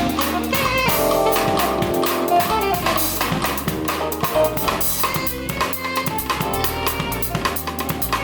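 Band music: a drum kit keeping a steady beat under guitar and bass.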